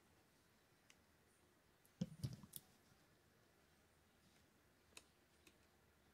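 Small metal parts of a lever-drag fishing reel clicking and knocking as the reel is handled and fitted back together: a quick cluster of clicks about two seconds in, then a few faint single clicks.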